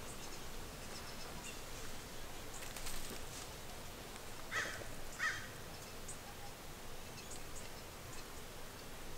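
Wild birds calling: two short calls about halfway through, with faint high chirps scattered around them.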